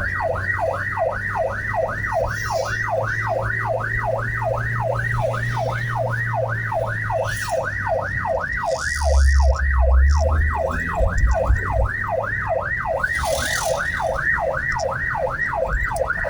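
Emergency vehicle's electronic siren sweeping rapidly up and down, about three cycles a second, over the low rumble of a vehicle engine, with a brief heavier low rumble a little past halfway.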